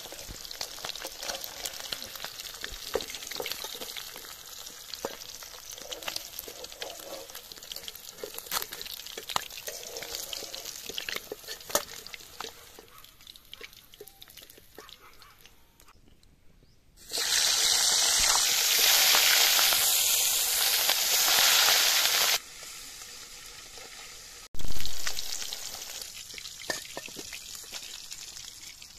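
Fish steaks frying in hot oil in a kadai: a crackling sizzle with the scrape and tap of a metal spatula turning them. A little past the middle comes a much louder, even sizzling hiss for about five seconds, which cuts off abruptly, and a short loud burst follows near the end.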